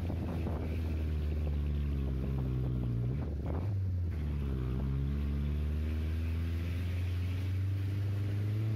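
Vehicle engine running under road travel, with wind noise. Its pitch sinks, breaks briefly about three and a half seconds in, then rises again and holds steady, as with a gear change.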